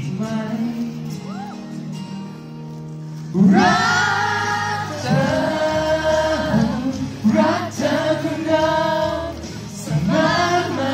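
A male singer performing a Thai pop song live into a handheld microphone over a backing track, amplified through the hall's sound system. A quieter accompaniment with held low notes gives way about three and a half seconds in to loud sung phrases with vibrato, broken by short breaths between lines.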